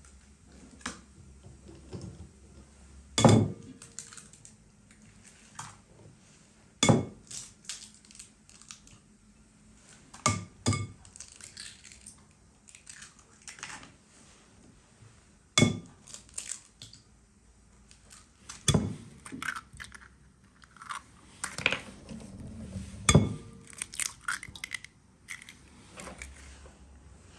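Eggs cracked one after another on the rim of a glass mixing bowl: a sharp tap every few seconds that briefly rings the glass, with smaller crackles of shell between the taps.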